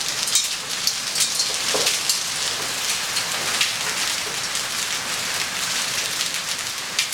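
Hail coming down hard: a dense, steady hiss of falling ice, broken by many sharp ticks as hailstones strike hard surfaces.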